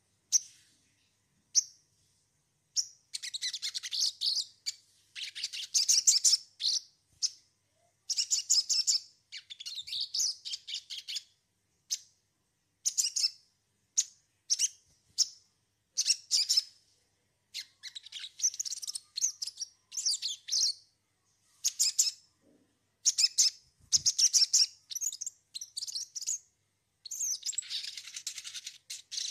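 Sogon bird calling in a long run of short, chirping bursts, one after another with brief pauses between them.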